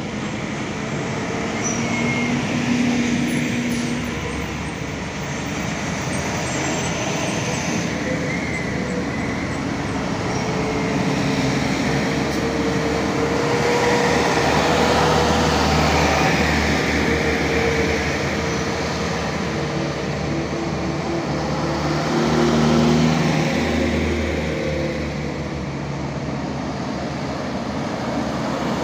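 Heavy diesel trucks passing one after another, including loaded sugarcane trucks and a tanker, their engines running and tyre noise swelling as each goes by, loudest about three seconds in, in the middle and again about two-thirds of the way through.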